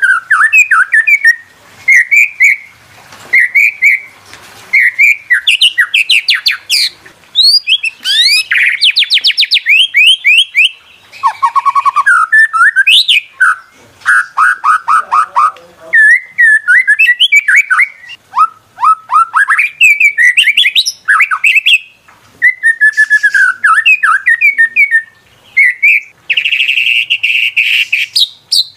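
White-rumped shama (murai batu) singing: a continuous run of varied phrases of clear whistled notes, quick pitch glides and rapid trills, with a harsh buzzy note near the end.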